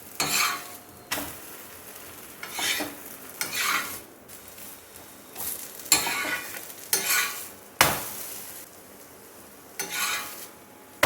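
Paneer paratha sizzling on a hot tawa while a metal spatula scrapes and presses it in repeated uneven strokes, with a few sharp taps of the spatula on the pan.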